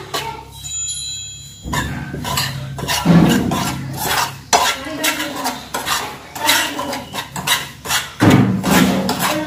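Metal spoon stirring and scraping a dry flour, semolina and rice mix around a frying pan as it dry-roasts, in a quick, irregular run of scrapes. There is a short pause about half a second in, and the scraping picks up again after about a second.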